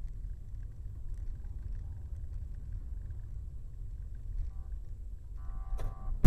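Low, steady rumble of a car driving, picked up by a dashcam inside the cabin. Near the end a brief pitched tone sounds for about half a second.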